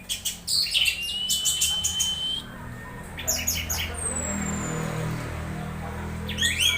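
Orange-headed thrush calling in short bursts of rapid, high chirping notes. About a second in it holds a long, steady whistled note for about a second and a half; around four seconds a thin, high whistle falls in pitch; another chirping phrase starts near the end.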